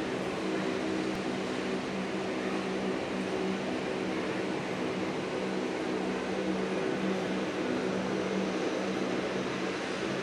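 Airbus A319 jet airliner's twin turbofan engines running steadily on the takeoff roll: an even rushing noise with a steady low hum.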